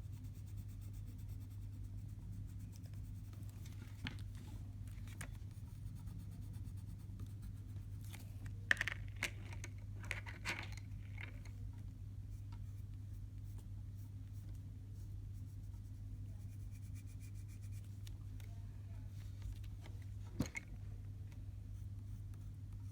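Coloured pencil scratching on paper in a few short, scattered strokes, the clearest about nine seconds in, over a steady low hum.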